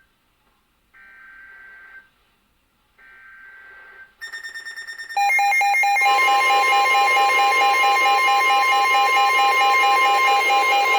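Emergency Alert System broadcast over NOAA Weather Radio: the SAME header's digital data bursts, each about a second long with a second of silence between, then from about five seconds in the loud, steady EAS attention tone. The sequence opens a new alert, here a Severe Thunderstorm Warning.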